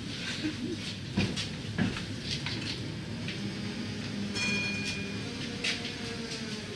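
Tatra T6A5 tram under way, heard from inside: running rumble with sharp knocks of the wheels over rail joints, and a low hum that rises slightly in pitch from about three seconds in. A brief high squeal comes about four and a half seconds in.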